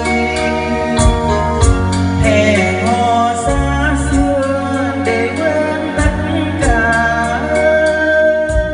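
A man singing karaoke into a handheld microphone over a backing track with bass and drums, played loud through a stage speaker system with 50 cm subwoofers.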